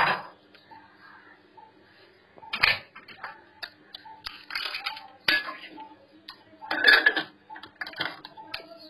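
Aluminium pressure cooker's lid and pot clinking and knocking as the lid is fitted and closed. The knocks come one at the start, one about two and a half seconds in, then several more through the second half.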